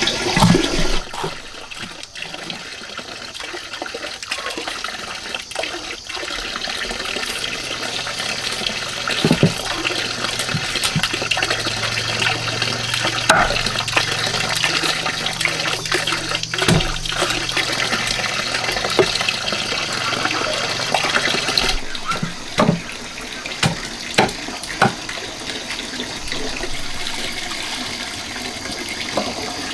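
Water running steadily from a pipe into a large pot, with occasional sharp knocks of a cleaver chopping fish on a wooden cutting board.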